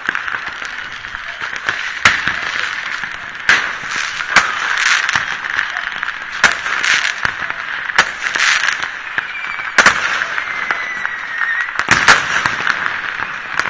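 Distant fireworks and firecrackers going off across a town, irregular sharp bangs about once a second over a steady hiss, the loudest pair near the end.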